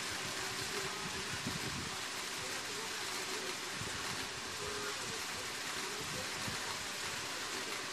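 Steady background hiss at an even level, with faint indistinct low sounds underneath.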